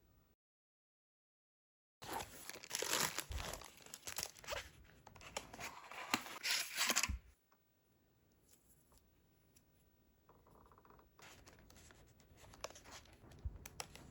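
Packaging being torn and crinkled open, loud and dense for about five seconds. After that come quieter scattered clicks and handling sounds.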